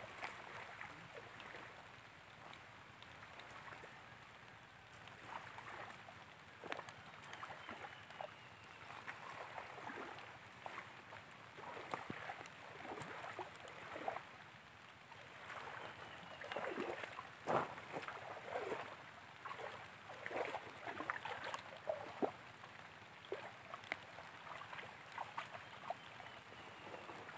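Shallow muddy water splashing and sloshing as people wade and grope in it by hand, in short irregular splashes that come thicker and louder about halfway through.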